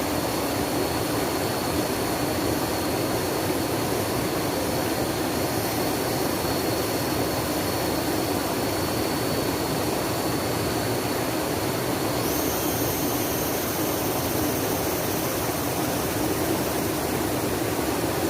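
Flowing water rushing steadily, a dense even noise with no breaks.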